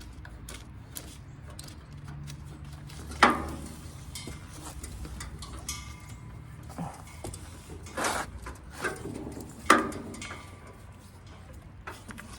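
Scattered metal clicks and knocks as a gas grill's regulator coupling is handled and threaded onto the propane tank valve. The sharpest knock is about three seconds in, with a few more later on.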